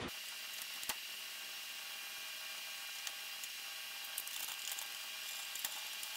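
Steady machine hum and hiss with a few thin, constant tones, broken by a few faint sharp clicks from handling the copier's drum unit and covers.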